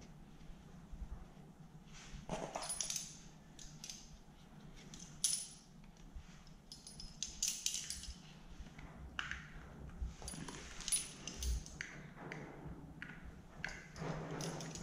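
Thin metal pick scraping and ticking against the metal plate and plastic of a chainsaw cover while cleaning it out: scattered small clicks and scrapes at an irregular pace.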